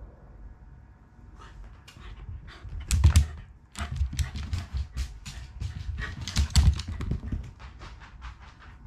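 Black Shiba Inu's post-bath zoomies: quick paw thumps and claw clicks as it dashes across tatami mats. The heaviest thuds come about three seconds in and again around six and a half seconds.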